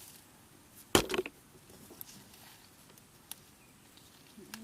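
Hands picking chilies among the plants: one brief, loud rustle and knock about a second in, then a few faint clicks and snaps.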